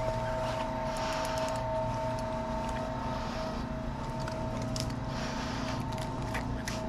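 Steady machine hum with two high steady tones over it, and a hiss that swells and fades about every two seconds.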